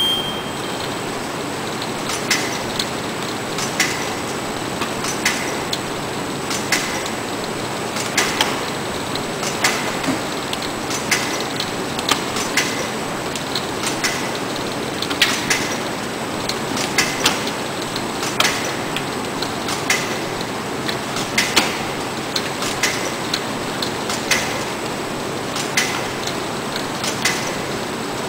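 Shanklin OMNI-G shrink-wrapping machine and T-71 shrink tunnel running: a steady mechanical whir and hiss with a sharp clack about every one and a half seconds as the wrapper cycles.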